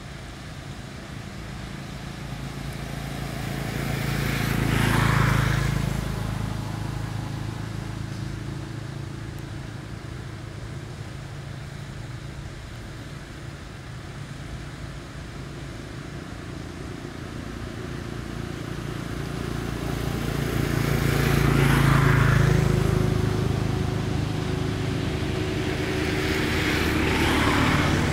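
Motor vehicles passing on a road: a low engine hum swells and fades three times, once a few seconds in, again about two-thirds of the way through, and once more near the end, with a quieter steady rumble between passes.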